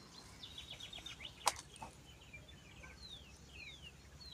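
Faint songbird singing: a quick run of short high notes about half a second in, then a string of downward-sliding whistles in the second half. One sharp click sounds about a second and a half in.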